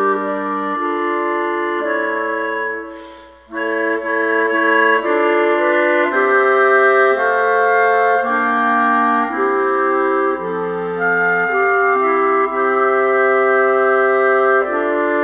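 Four B-flat clarinets playing held chords in four-part harmony, the parts multitracked by one player, the chords changing about every second. About three seconds in the sound dips briefly for a breath between phrases.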